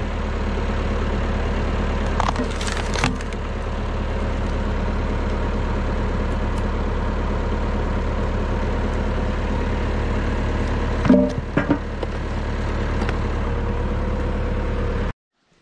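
Massey Ferguson 165 tractor engine running steadily while powering a hydraulic log splitter. Sharp cracks of splitting wood come about two to three seconds in and again around eleven seconds in. The sound cuts off abruptly just before the end.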